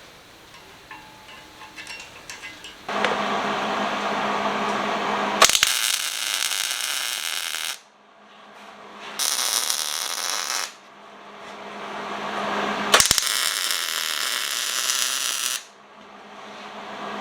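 Welding arc crackling in three bursts of a few seconds each, every one starting and stopping abruptly, with a few light clicks before the first.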